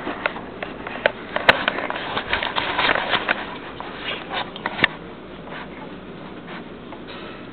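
Handling noise from a handheld camera being carried on the move: irregular rustling and clicks with a sharp knock, dying down to a low hiss about five seconds in.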